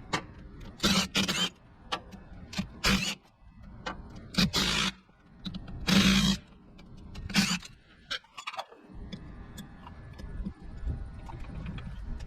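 Cordless impact wrench run in five short bursts, spinning out the bolts on a Copeland semi-hermetic compressor, followed by lighter metal clinks and clicks.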